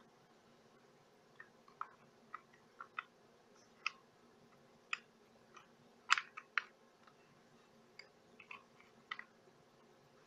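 Faint, irregular small clicks and taps of an HO scale model locomotive's plastic shell and chassis being handled and turned over in the hands.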